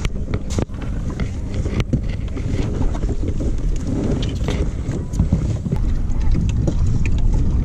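Wind buffeting the kayak-mounted camera's microphone as a rumbling rush, with a couple of sharp knocks in the first two seconds and lighter clicks and bumps as a man climbs into the kayak and pushes off.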